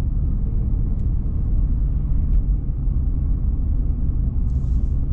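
Car driving at road speed, heard from inside the cabin: a steady low rumble of engine and tyres on the road.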